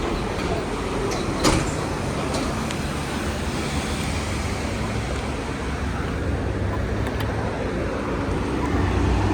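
Road traffic on a city street: a steady rumble of passing vehicles, with a single sharp knock about a second and a half in. An engine grows louder near the end.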